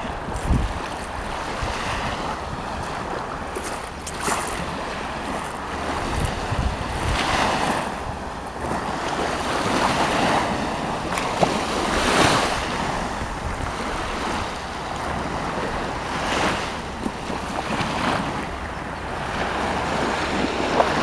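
Sea waves breaking and washing in, swelling up every few seconds, with wind buffeting the microphone.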